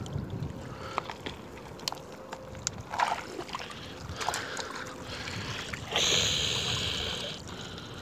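Shallow seawater splashing and sloshing with small scattered clicks as hands pull wild wakame from the rocks. Near the end comes a hiss of water streaming for about a second and a half, as a frond is lifted out dripping.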